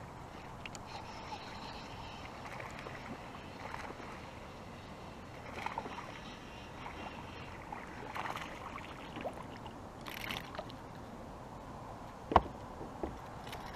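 A small hooked largemouth bass splashing at the surface as it is reeled in, with scattered splashes and handling noises over a steady hiss of water. A single sharp knock near the end is the loudest sound.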